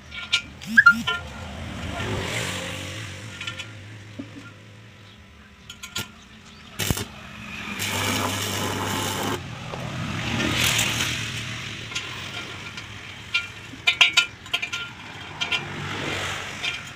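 Stick (arc) welding electrode cutting a hole through a galvanized iron pipe: the arc crackles and hisses in several spells, the longest about eight seconds in, over a steady low hum. A few sharp taps come near the start and again later.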